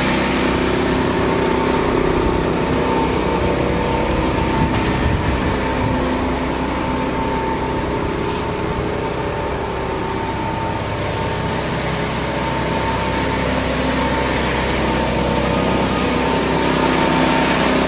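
A small engine running steadily at an even speed, with a thin steady tone above it.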